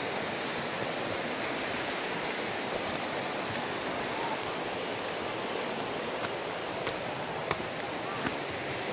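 Steady rushing of flowing water from a nearby mountain stream, with a few light crackles of footsteps on the leafy dirt trail in the second half.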